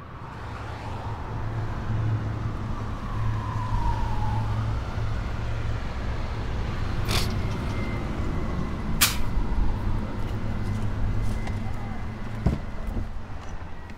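City street traffic: a heavy road vehicle's engine rumbling as it passes, with a falling squeal about three to four seconds in and two sharp clicks partway through.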